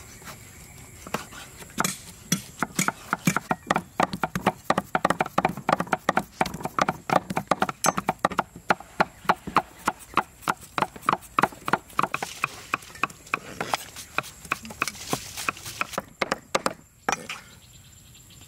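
Cleaver chopping on a thick wooden chopping board, a rapid run of knocks several strokes a second as pork and onion are minced; the chopping stops shortly before the end.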